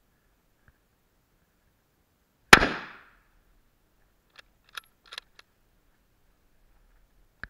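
A single shot from a Yugoslav M24/47 Mauser bolt-action rifle in 7.92×57mm about two and a half seconds in, with a short ringing tail. About two seconds later the bolt is worked in a quick run of sharp metallic clicks, ejecting the spent case.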